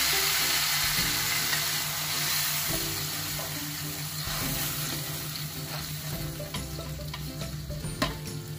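Blended chili spice paste sizzling in hot oil in an aluminium wok as it is scraped in and stirred with a metal spatula, the first sauté of the ground spices. The sizzle is loudest at first and dies down gradually. There is a sharp click near the end.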